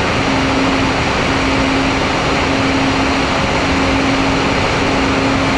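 Onboard audio of an MFD 1800 twin electric FPV plane in steady cruise: a constant rush of wind over the camera with an even hum from the motors and propellers.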